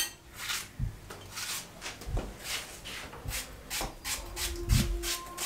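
Knife cutting a peeled apple held in the hand into chunks: a run of short, crisp cuts about two or three a second, with a few soft low knocks.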